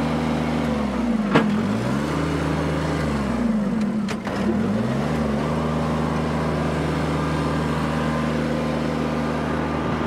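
Compact tractor and its PTO-driven wood chipper running at a steady speed, a constant low mechanical drone. Two short, light knocks come about a second and a half in and about four seconds in.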